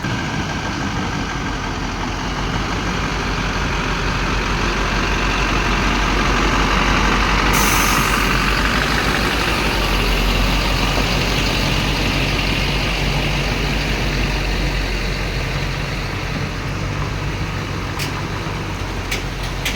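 Heavy truck's diesel engine running steadily, growing louder in the middle, with a brief air hiss about seven and a half seconds in.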